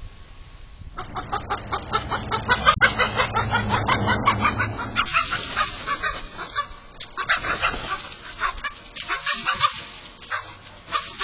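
Backyard chickens squawking in alarm: a fast run of loud, repeated calls that starts about a second in and thins out after about five seconds, heard through a security camera's narrow-band microphone.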